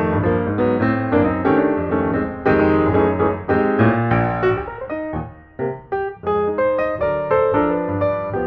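Background piano music playing many quick notes over a low bass line, thinning briefly a little past halfway.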